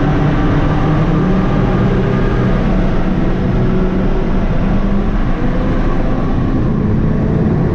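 Sports car's engine droning at a steady pitch under heavy road and wind noise, heard from inside the cabin while cruising at high speed through a tunnel.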